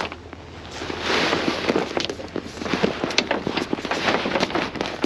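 A plastic tarp crackling and rustling as it is pulled over and handled on a truck load, a dense run of irregular crackles.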